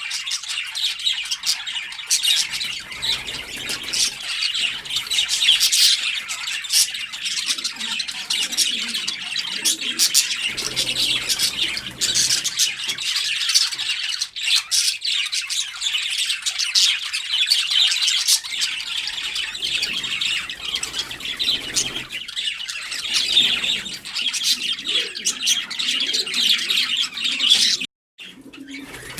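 Many birds chirping and squawking together in a dense, continuous chatter. It cuts out abruptly for a moment near the end, then resumes.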